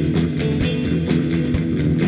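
Instrumental psychedelic rock from a drums, electric guitar and bass guitar trio playing live: held guitar and bass notes over a steady beat of drum hits about twice a second.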